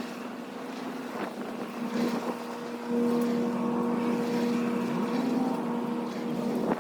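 A steady engine hum, getting louder about three seconds in, with wind noise on the microphone.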